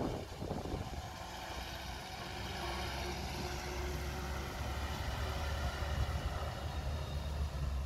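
A running vehicle's low, steady rumble that grows stronger over the last few seconds and cuts off abruptly, with faint steady tones above it.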